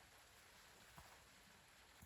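Near silence: a faint steady hiss with one soft tick about a second in.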